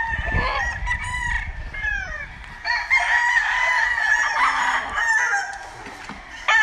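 Several gamecocks crowing, their calls overlapping one another.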